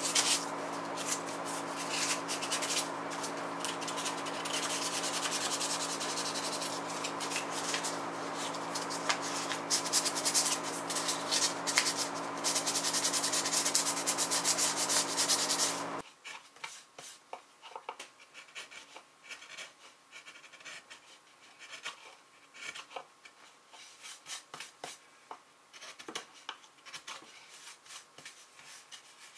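Sandpaper rubbed back and forth over a hand-carved wooden tray in quick, rasping strokes. About halfway through it cuts off abruptly, and quieter short scraping strokes follow: a small carving knife paring facets into the wood.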